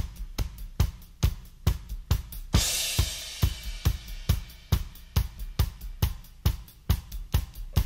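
Drum kit playing alone in a steady beat of kick, snare and hi-hat, with a cymbal crash about two and a half seconds in that rings on for a second or two.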